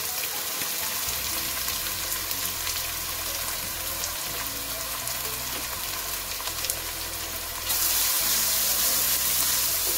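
Chopped onions sizzling as they fry in hot mustard oil in a kadhai, a steady hiss that grows louder near the end as the onions are stirred through the oil.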